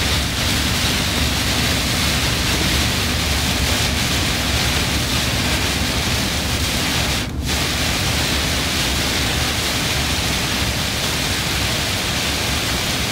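Steady driving noise heard inside a truck cab at expressway speed: engine drone mixed with tyre and road noise. The noise drops out briefly about seven seconds in.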